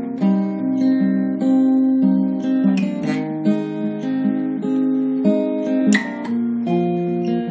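Background music: an acoustic guitar playing a melody over held notes, with a few chords strummed about three and six seconds in.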